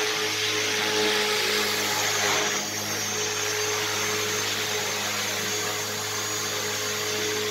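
Electric radio-controlled model helicopter flying in a large hall: a steady motor and rotor hum over a rush of air that eases off about two and a half seconds in.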